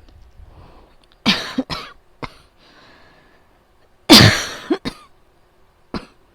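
A person coughing during an asthma attack. A fit of harsh coughs comes about a second in, then a louder fit about four seconds in, with a single short cough near the end.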